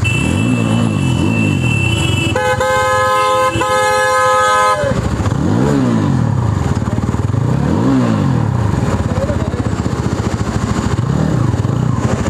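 A vehicle engine running, revving up and back down several times. About two seconds in, a multi-tone vehicle horn honks in a few short toots and then holds for a second or so.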